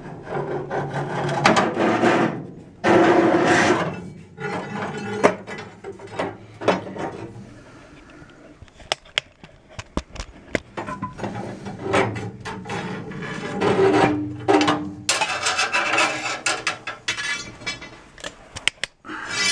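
Irregular rubbing and scraping with scattered clicks and knocks from metal parts under a 1964 VW bus, as an emergency brake cable is worked by hand through the frame.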